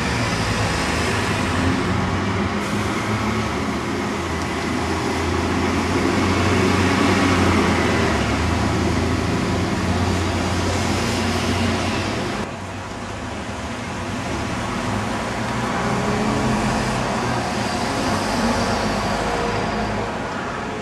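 Diesel bus engine passing close in street traffic, a low steady engine hum that swells to its loudest about halfway through. It drops off suddenly, then a second bus engine rises more gently near the end.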